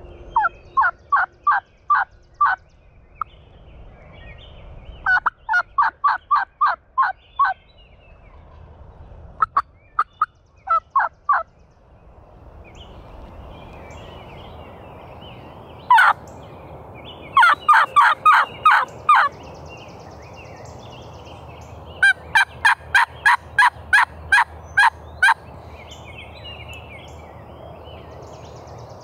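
Hen turkey yelps made on a turkey call: five runs of sharp, evenly spaced yelps, about three a second and seven to ten to a run, with a single loud cut about sixteen seconds in. The calls are meant to draw the strutting gobbler in.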